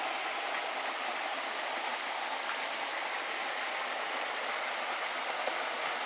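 Small forest stream running over rocks: a steady rush of flowing water.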